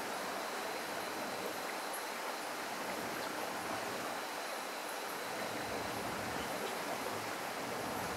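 Steady, even rushing of running water. A faint thin high tone joins about two and a half seconds in.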